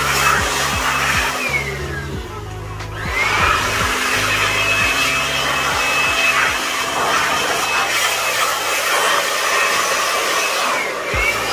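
Handheld electric air blower running, blowing dust out of an opened UPS unit's circuit boards. Its whine winds down about two seconds in and spins back up a second later, with another short dip and rise near the end.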